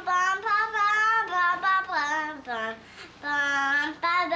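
A young girl singing on her own, holding several long notes, with a brief pause a little under three seconds in.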